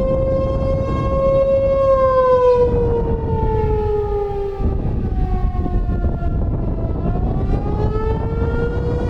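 ASC T-128 outdoor warning siren sounding the attack signal: its tone holds steady for about two seconds, slides down in pitch over the next few seconds, then climbs back up near the end. This rise and fall of the wail is the attack (take-cover) warning.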